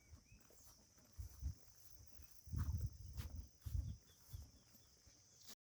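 Steady high-pitched insect drone of a tropical forest, with irregular low thumps that are loudest between about two and a half and four seconds in; the sound cuts off suddenly near the end.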